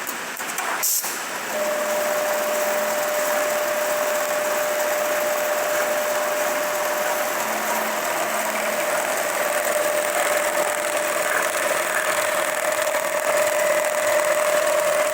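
Lanmax LM 1390G-HL programmable large-area sewing machine running its stitching cycle: a steady mechanical hum with a thin, constant whine. A short break and a sharp click about a second in, then the machine runs on steadily.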